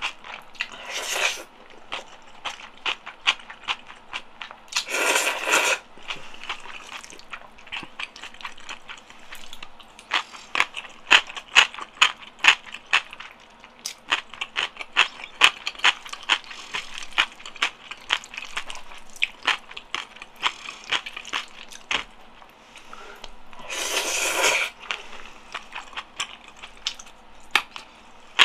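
Close-miked eating of jajang noodles and sauce: wet, sticky chewing and mouth clicks, many a second. Three louder slurps come about a second in, around five seconds in and near the end.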